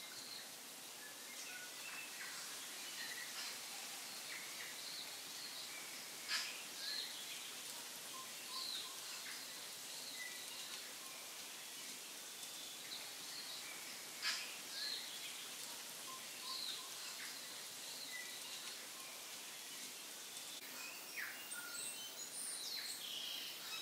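Faint birds chirping over a steady background hiss, with two short, sharper sounds about six and fourteen seconds in.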